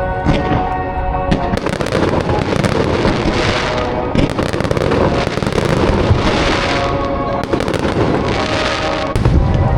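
Aerial fireworks going off in quick succession, a dense run of crackling and bangs, over music played with the show.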